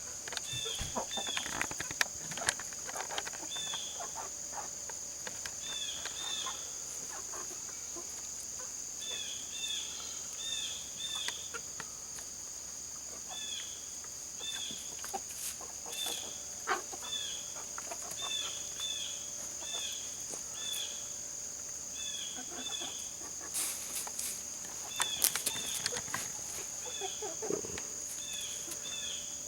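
Chicken-yard ambience: a steady high-pitched insect drone, with short high bird chirps in clusters of two to four repeating throughout. Occasional sharp clicks and scratches come through, a few of them louder near the end.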